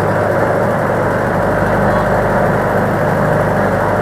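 A passenger ferry boat's engine running steadily under way, a constant loud hum.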